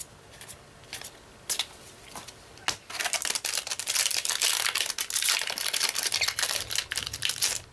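A few light clicks of cards being handled, then, about three seconds in, a Yu-Gi-Oh Clash of Rebellions foil booster pack crinkling and tearing as it is opened, for about four seconds.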